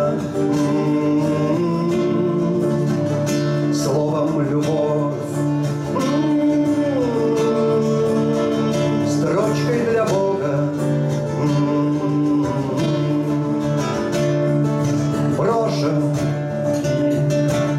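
Two acoustic guitars, a nylon-string classical and a steel-string, playing together in a live bard song between sung verses, with long held notes.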